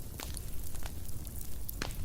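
Fire crackling: a few irregular sharp pops and snaps over a steady low rumble, the sharpest pop near the end.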